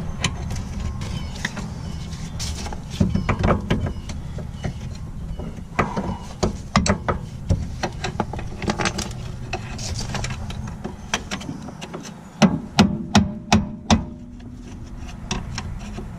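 Metal tools clicking, clinking and scraping against rear brake hardware as a part is worked loose, with a quick run of louder sharp clicks about three quarters of the way through.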